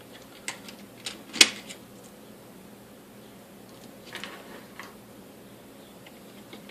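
Sharp clicks and knocks of an electric stapler's plastic housing and small metal parts being handled as it is taken apart. The loudest click comes about a second and a half in, with a few lighter ones near four seconds.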